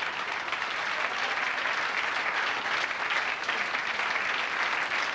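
Audience applauding: dense, steady clapping from a crowd, slightly building about a second in.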